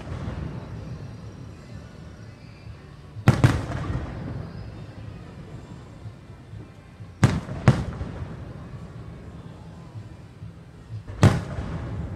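Aerial firework shells bursting overhead: sharp booms roughly every four seconds, a double bang about three seconds in, two more about seven seconds in and one near the end, each followed by a rolling echo.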